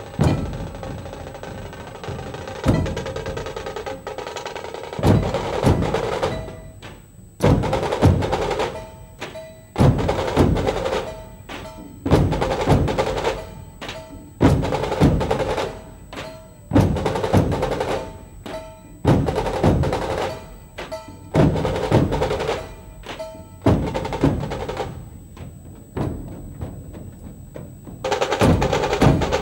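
Dhol-tasha drum ensemble playing: large Maharashtrian barrel dhols beat out a heavy repeating rhythm of strokes falling roughly in pairs about every two seconds over a rattling stick-drum roll. The full ensemble plays more densely at the start and again near the end.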